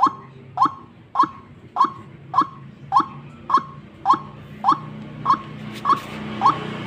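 White-breasted waterhen (ruak-ruak) calling: a short, sharp note repeated evenly, just under two a second, about a dozen times. This is a decoy bird's lure call, used to draw wild waterhens to a trap.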